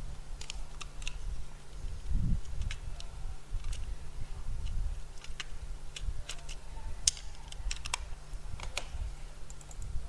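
Scattered, irregular clicks from a computer keyboard and mouse over a steady low hum.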